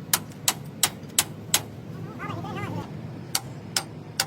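Hammer tapping on steel, sharp evenly spaced strikes about three a second, stopping for about a second and a half and then starting again.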